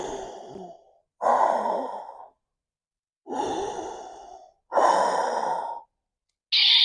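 Five slow, heavy breaths, each about a second long with short silences between. The last one, near the end, is hissier than the rest.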